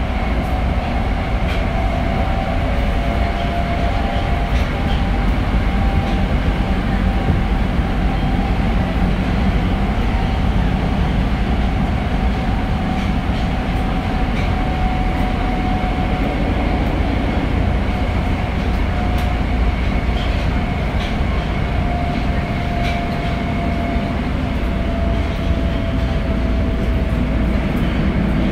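Tokyo Metro 02 series subway train running through the tunnel, heard inside the car: a steady rumble of wheels on rail with a motor whine that slowly sinks in pitch, and scattered sharp clicks from the track.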